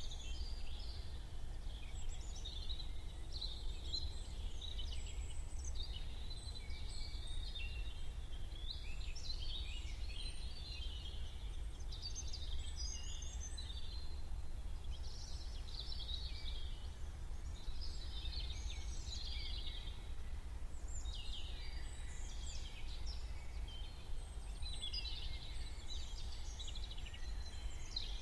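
A morning chorus of many small birds chirping and twittering over one another without pause, over a steady low rumble.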